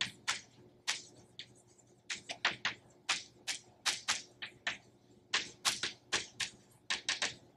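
Chalk writing on a blackboard: a quick, irregular run of short sharp taps and strokes, about three a second.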